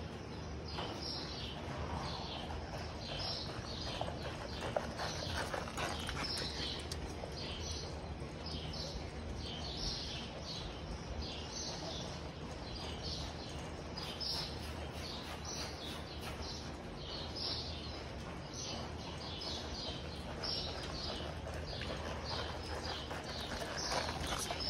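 A horse loping around barrels on soft arena dirt, its hoofbeats dull thuds in the footing. A short high chirp repeats about every two-thirds of a second throughout.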